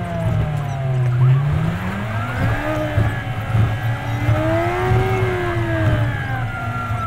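Vehicle engine and road noise, sped up with the fast-forward playback. The engine tones glide slowly up and down in pitch over a steady low hum.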